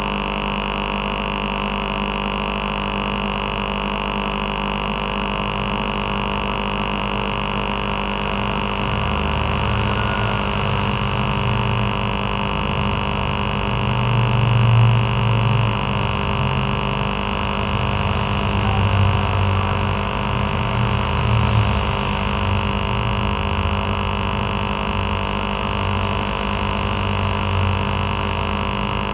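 Aquarium air pump running with a steady electric buzz made up of several steady tones. From about a third of the way in, a lower, uneven rumble rises and falls beneath the buzz.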